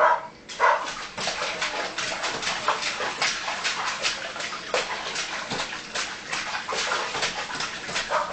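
Water splashing in a kitchen sink as a baby slaps at the bath water, a rapid run of short splashes. A couple of brief vocal squeaks come in the first second.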